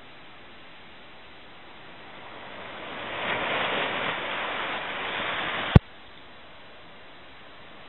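Surf washing up a sandy beach: a wave swells in about three seconds in and fades. A single sharp click near the end is the loudest thing, and after it only a low steady hiss remains.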